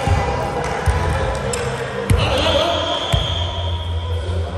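A volleyball struck three times, about a second apart, each hit sharp and echoing in a large gymnasium, over a steady low hum.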